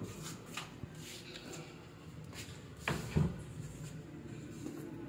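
Rustling handling noise with scattered light clicks, and a pair of dull knocks close together about three seconds in.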